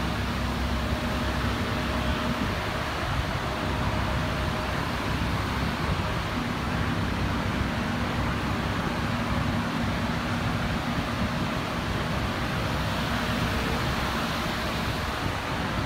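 Steady machine noise, like a fan or motor running, with a faint hum that drops out about two seconds in and comes back about six seconds in.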